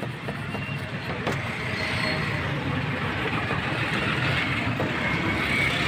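A chef's knife slicing through a toasted sandwich onto a plastic cutting board, giving a few light taps in the first second or so, under a steady rumbling background noise.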